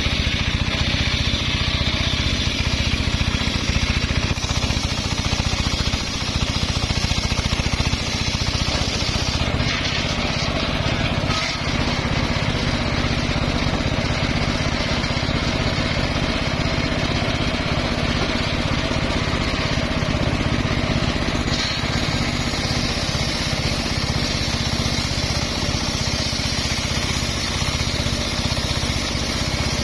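Homemade engine-driven circular saw bench running steadily while its large blade rips lengthwise through a timber beam.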